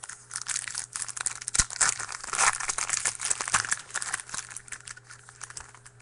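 Wrapper of a trading-card pack being torn open and crinkled: a dense run of crackles, loudest in the middle and thinning out near the end.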